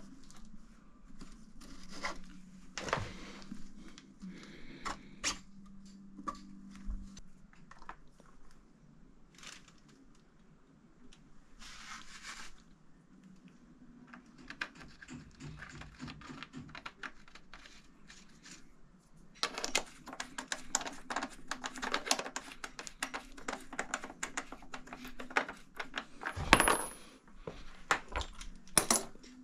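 Metal hand tools and sockets clinking and clattering as they are handled and set down. Scattered single clinks give way to a dense run of rapid metallic clicking in the last third.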